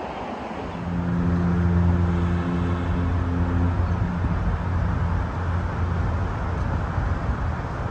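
Road traffic noise with a low, steady engine hum that swells about a second in and eases after about four seconds.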